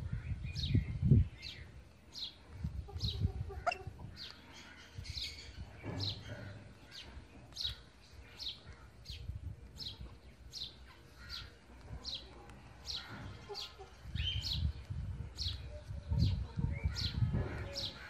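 A bird chirping over and over, short high notes each falling in pitch at about two a second, with low thuds and rumbles at the start and again near the end.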